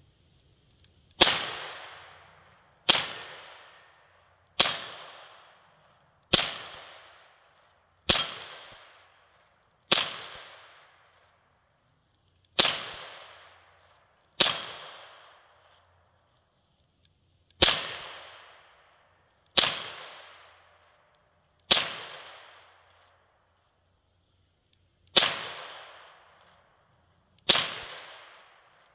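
Hammerli TAC R1 .22 LR semi-automatic rifle fired in slow single shots, thirteen in all, spaced about two seconds apart with a few longer pauses, each sharp crack trailing off in echo.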